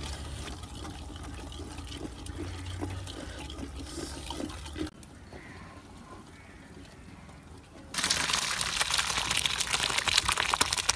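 Water poured in a stream onto chopped greens in a steel colander: a loud, steady splashing rush that starts suddenly about eight seconds in. Before it there is only a quieter low hum with faint small knocks.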